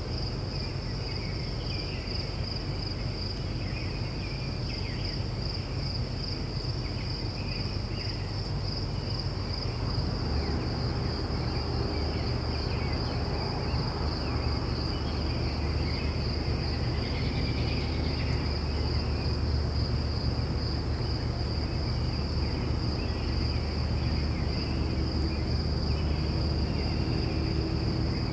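Crickets chirring in a steady, high, pulsing trill, with scattered bird chirps over it and a low rumble that grows louder about a third of the way in.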